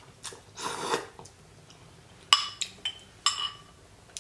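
A short slurp of noodle broth, then a spoon clinking against a ceramic bowl: one sharp ringing clink a little past two seconds in, followed by three lighter clinks.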